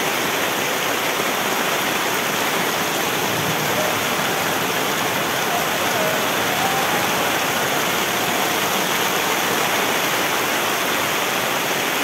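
Heavy rain and strong wind, with waves breaking on the shore, blending into one steady, loud rushing noise.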